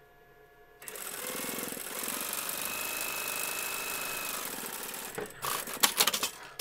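Domestic sewing machine starts about a second in and runs steadily for about four seconds, stitching the lining's side seam, then stops. It is followed by a few sharp clicks and knocks.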